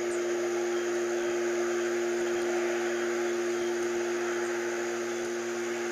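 Steady humming drone of unknown origin: one strong held tone with a fainter lower tone over an even hiss. The recorder rules out a fan and the transformer as its source.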